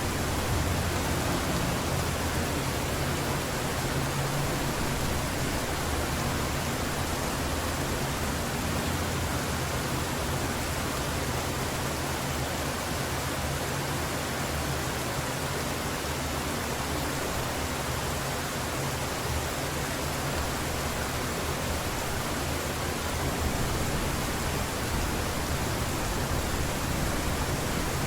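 Heavy rain falling in a steady, even hiss. A low rumble of thunder dies away over the first several seconds.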